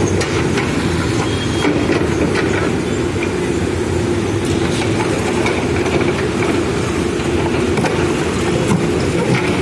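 Backhoe loader's diesel engine running steadily as the rear arm and bucket work, with a few short knocks through it.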